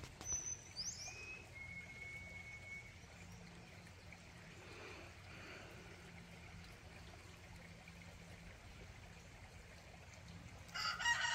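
Quiet outdoor ambience: a faint steady low hum and soft hiss, with a short high bird chirp and a thin whistle in the first few seconds. Near the end a rooster starts crowing loudly, a long call that falls in pitch at its close.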